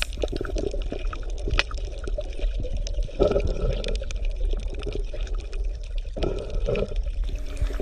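Underwater ambience: a steady wash of water noise full of small clicks and crackles, with short gurgles about three seconds in and again near the end.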